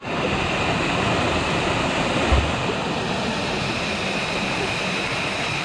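Small waterfall pouring into a rock pool: a steady rush of falling water, with one brief low thump about two seconds in.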